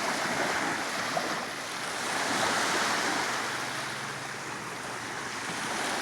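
Small waves washing onto a beach, the surf swelling about two seconds in and easing again, with some wind on the microphone.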